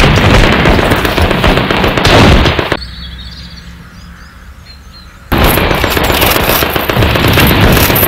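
Battle soundtrack of dense gunfire and blasts. A little under three seconds in it fades down to a quieter stretch where birds chirp, and about five seconds in the gunfire cuts back in suddenly at full level.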